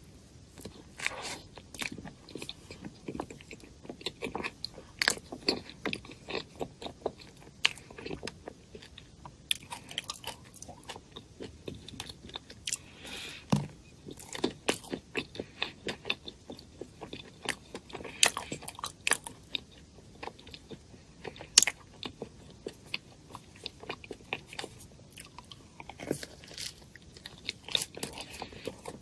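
Close-miked eating sounds: a person biting and chewing food, a dense, irregular run of sharp clicks with no talking.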